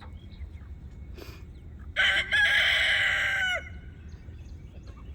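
Rooster crowing once, a short first note then a long held one lasting about a second and a half, in the middle of the stretch, over faint chick peeps.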